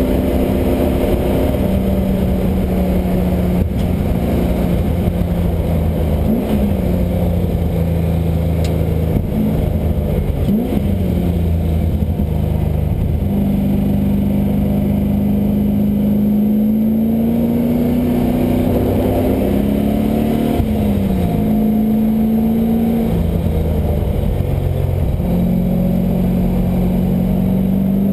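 LS1 5.7-litre V8 in a Mazda Miata being driven hard on track, revving up and down through the gears. The engine note climbs and drops several times, with quick pitch jumps at the gear changes.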